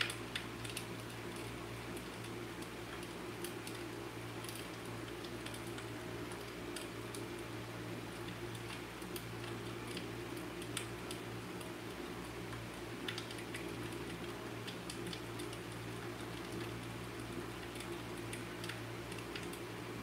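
Fireplace crackling: irregular small pops and snaps scattered throughout, over a steady low hum.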